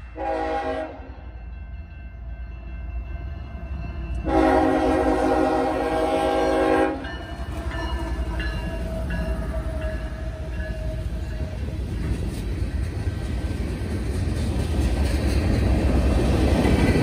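Horn of a CSX GE ES44AH diesel locomotive sounding for a grade crossing: a short blast, then a long blast about four seconds later. The train then rolls past with a rising rumble of engine and freight-car wheels that is loudest near the end.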